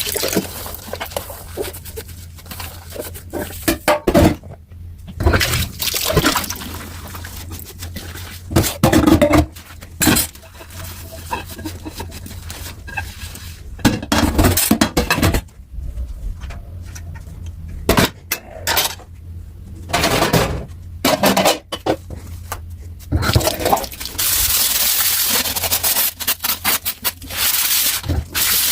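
Dishes being washed by hand in a kitchen sink: plates and utensils clattering, knocking and scraping against each other. Near the end the tap runs steadily for a few seconds.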